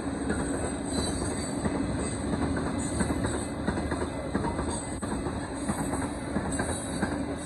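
Loaded freight cars of a Union Pacific rock train rolling past a grade crossing: a steady rumble of steel wheels on the rails with occasional sharp clacks.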